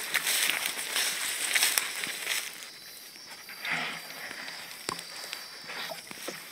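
Footsteps and a body pushing through dense undergrowth: leaves rustling and dry twigs and litter crackling underfoot, busiest in the first couple of seconds and lighter after.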